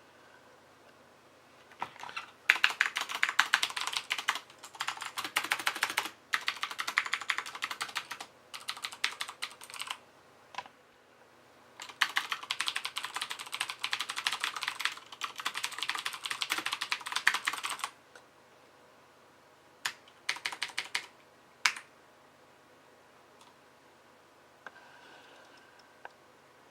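Fast typing on a mechanical keyboard with Cherry MX Blue switches, each keystroke a sharp click, in two long bursts with short pauses, then a few single keystrokes near the end.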